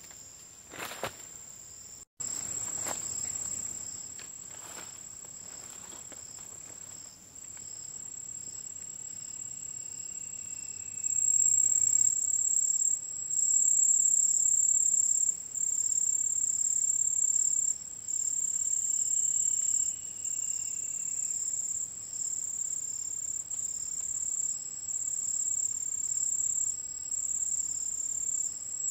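Insects chirring in a steady high-pitched drone that grows louder about eleven seconds in, then swells and dips every second or two. Two faint falling whistles sound over it.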